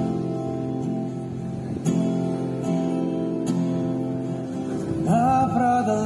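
Music: acoustic guitar strumming chords, with a voice starting to sing near the end.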